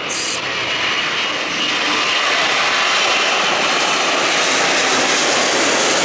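Four jet engines of a Delta Boeing 747-400 at takeoff thrust during the climb-out: a steady rushing noise that grows louder over the first couple of seconds and then holds.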